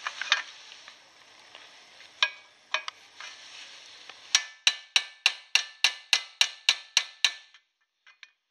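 Ball peen hammer striking a steel rivet set held on a rivet in mild steel sheet, forming the rivet's dome head. A few light taps, then from about four seconds in a steady run of about a dozen sharp metallic strikes, roughly four a second.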